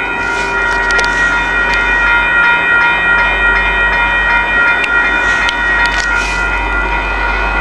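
Diesel locomotive running: a steady low drone with several steady whining tones over it. A few sharp clicks come about a second in and again between five and six and a half seconds in.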